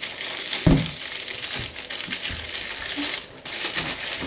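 Crinkling and rustling of plastic packaging being handled and unwrapped, with one thump just under a second in.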